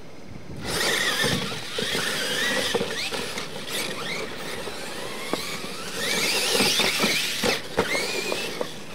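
Electric brushless motors of two Losi LMT R/C monster trucks whining up and down in pitch as they launch about a second in and race on dirt, tyres spinning and scattering dirt. Several sharp knocks come in the second half.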